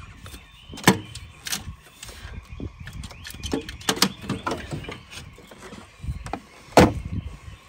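An alternator being worked free of a tight fit in a pickup's engine bay: irregular metallic knocks and clunks against the engine and brackets, with a sharp knock about a second in and the loudest near the end.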